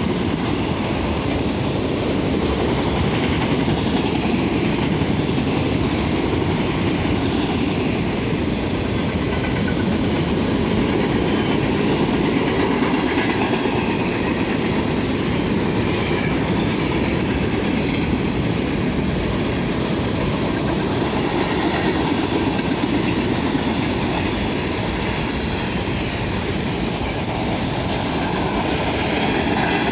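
A BNSF manifest freight train rolling past on the rails, a loud, steady rolling noise of wheels on track that holds throughout.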